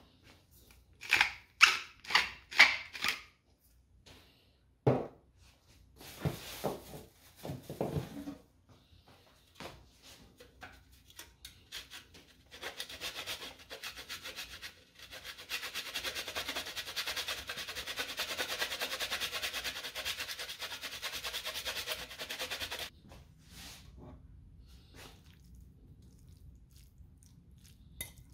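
A pepper mill turned in about five quick crunching twists, then parmesan grated over a metal hand grater in a long steady rasping run of about ten seconds.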